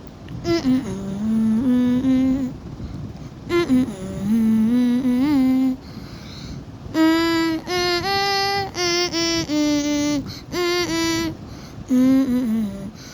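Background music: a simple melody of held notes stepping up and down in short phrases, in a soft voice-like tone.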